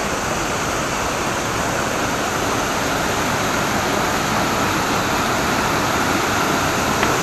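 Waterfall: a steady rush of falling water, growing slightly louder.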